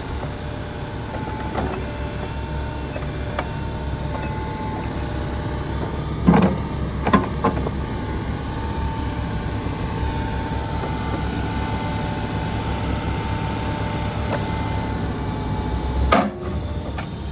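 Case 590 Super N backhoe's diesel engine running steadily under a constant high tone as the hoe's boom, stick and bucket are worked. Several metallic clunks come about six to seven seconds in, and a sharp knock comes near the end.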